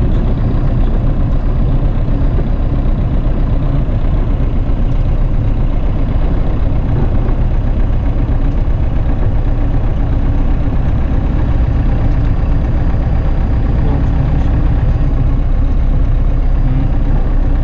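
Light aircraft's piston engine running steadily: an even, low drone.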